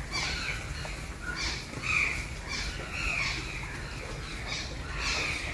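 Otters chirping and squeaking as they play-fight, a string of short, high, falling calls a few times a second.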